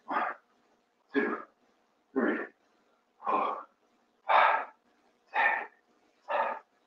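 A man's short, sharp vocal sounds, about one a second, each in time with a rep of a seated knee-tuck crunch.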